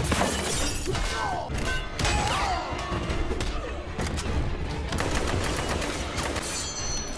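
Action-film soundtrack: repeated gunshots and hard hits over background music.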